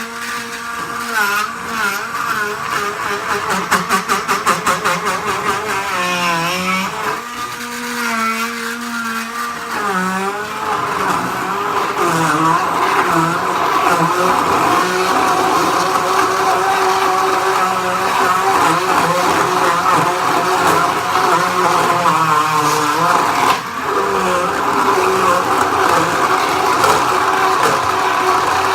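Countertop blender motor running on its turbo setting, blending fruit for a smoothie. The motor's pitch sags and recovers several times in the first ten seconds, then runs steadier and louder, with a brief dip a few seconds before the end.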